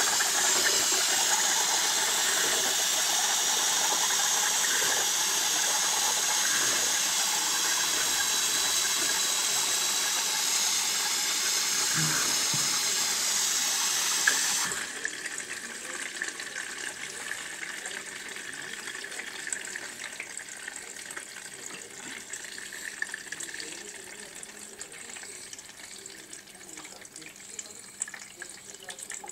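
Arçelik 4440 dishwasher, whose circulation motor is faulty, running with a steady rush of water that cuts off suddenly about fifteen seconds in. A quieter trickling with scattered ticks follows.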